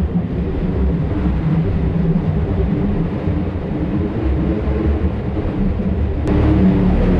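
Side-by-side UTV engine running steadily at low speed, a low drone, with an abrupt change in the sound a little after six seconds in.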